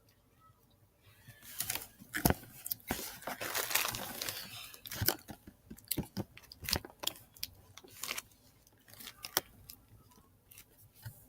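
Someone crunching and chewing candy close to the microphone: irregular sharp crunches starting about a second in, with a denser stretch of crunching and rustling in the middle.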